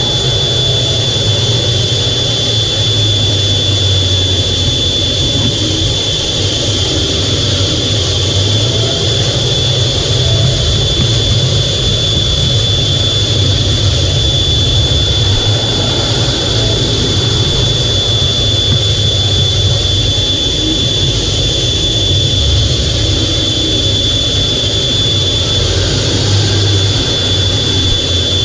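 F/A-18's twin jet engines running steadily, heard from inside the closed cockpit: an even low rumble with a steady high-pitched whine over it.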